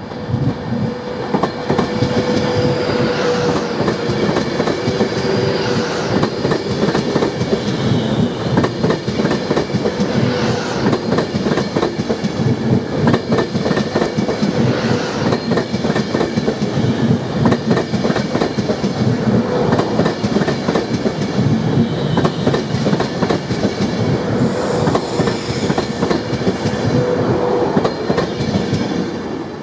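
Class 390 Pendolino electric multiple unit running past close by: a steady rumble of wheels on rails, with clicks and clatter over rail joints and a steady tone held throughout.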